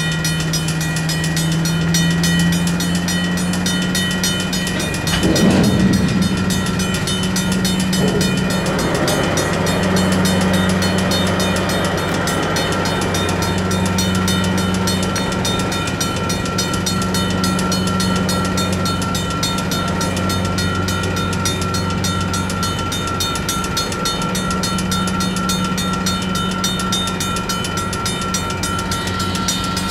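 Diesel switching locomotive running steadily close by, with the railroad crossing's bells ringing in a fast, even rhythm. A brief louder rush of noise comes about five seconds in.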